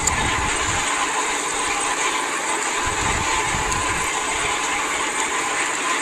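Rough sea rushing and breaking against the hull of a fishing boat under way, over the steady drone of the boat's engine. Low rumbles of wind or wave buffeting come near the start and again about halfway through.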